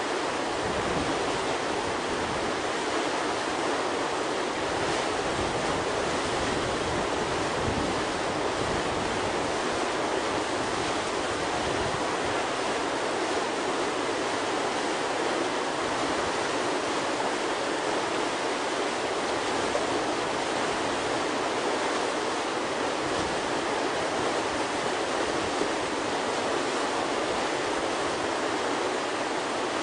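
Steady rushing of whitewater churning through a river hole.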